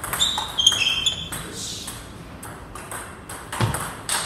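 Table tennis rally: the ball clicking sharply off the paddles and table, several quick hits with short high squeaks in the first second, then another cluster of hits and a low thud near the end as the point is won.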